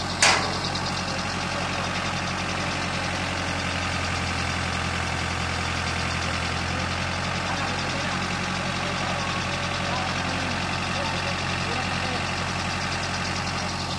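Boom truck engine running steadily at idle while it powers the crane. A single sharp, high click sounds about a third of a second in.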